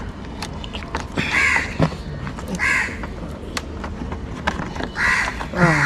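Crows cawing, three harsh calls spaced about a second or more apart, over scattered small clicks from a plastic bulb holder being twisted out of the headlamp housing.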